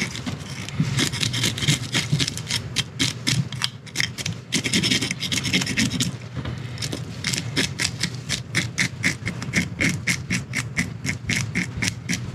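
Hand fish scaler scraping the scales off a black sea bass, in quick repeated strokes of about three to four a second, with a brief letup about six seconds in.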